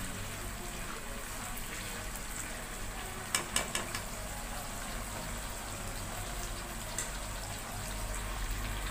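Thin potato slices deep-frying in about a cup of hot oil in a wok, the oil sizzling and bubbling steadily. A quick cluster of sharp clicks comes a little over three seconds in, and a single click near seven seconds.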